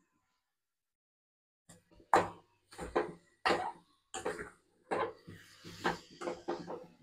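A dog barking in a run of short, sharp barks, one to two a second, starting a little under two seconds in.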